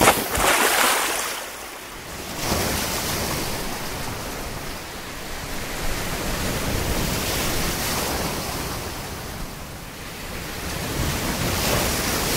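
Sea waves breaking and washing, swelling and easing in surges every few seconds.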